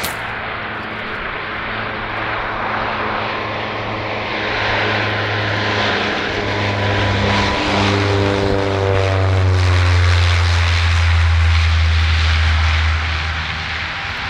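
CASA CN-235-100's two General Electric CT7-9C turboprops on landing approach: a steady propeller drone that grows louder. Its stack of whining tones drops in pitch about eight seconds in as the aircraft passes, then a loud low drone carries on as it reaches the runway.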